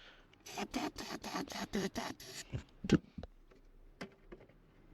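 Aerosol can of brake cleaner sprayed into the engine's air intake in a quick series of short hissing bursts, about four or five a second, followed by a single knock near three seconds in.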